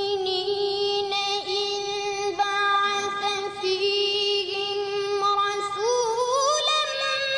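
A boy's voice reciting the Quran in melodic tajweed style, holding one long note with small wavering ornaments. About six seconds in, it glides up to a higher note and holds it.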